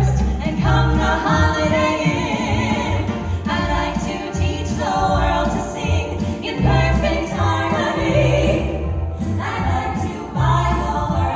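Vocal group singing a Christmas song in close harmony over a backing track with a steady bass beat and jingle bells.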